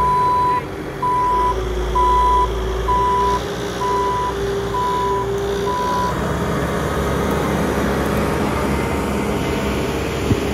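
Bobcat T870 compact track loader's backup alarm beeping seven times, about once a second, then stopping about six seconds in, over the steady running of its diesel engine.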